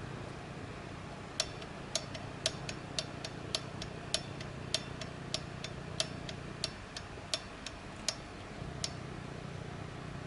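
Abnormal clattering noise from a Suzuki GSX1100S: sharp, slightly irregular clicks about twice a second over a low steady hum. The clicks stop near the end.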